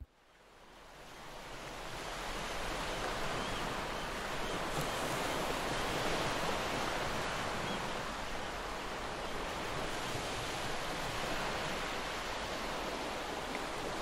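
Steady wash of ocean surf, fading in over the first two seconds and then holding even.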